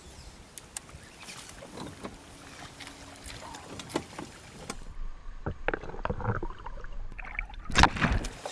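Water splashing at the surface, with scattered small splashes and clicks. About five seconds in, the sound turns dull and muffled as if heard from under the water, and a loud burst of splashing comes near the end.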